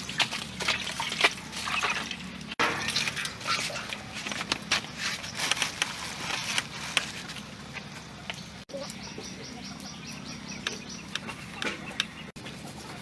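Water splashing and dripping as a raw beef leg is washed by hand in a basin, then scattered clicks, knocks and rustles of meat and food being handled.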